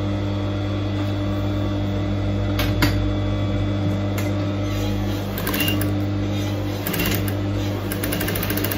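Electric sewing machine running steadily, stitching a narrow double-folded hem along the edge of a door mat's thick fabric base. A couple of sharp clicks come about two and a half seconds in, and runs of fast clicking come in the second half.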